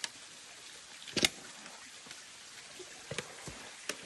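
Steady rush of a stream, with a few sharp knocks, the loudest about a second in.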